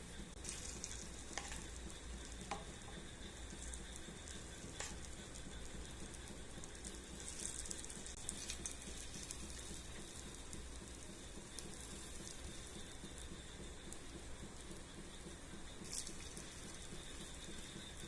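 Egg paniyaram batter frying in a paniyaram pan, a faint steady sizzle with a few light clicks now and then.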